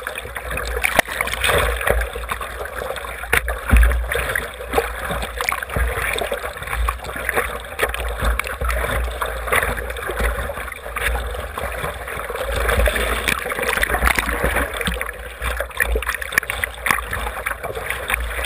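Seawater sloshing and splashing against the nose of a surfboard as it is hand-paddled, with irregular splashes over a steady low rumble of water against a waterproof camera housing.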